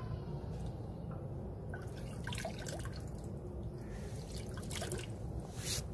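Water splashing and dripping as a hand stirs the water in a glass tank and lifts out, drops falling back with small plops, scattered through the second half.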